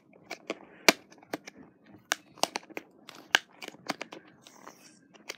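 Fingernails picking and scratching at tape on a cardboard box: a run of irregular sharp clicks and ticks, about three or four a second, with the loudest about a second in and again past three seconds.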